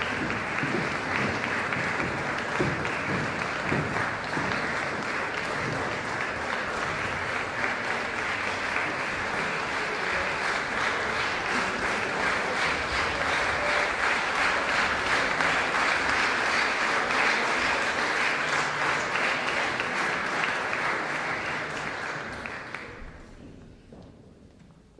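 Audience applauding steadily, dying away over the last two seconds or so.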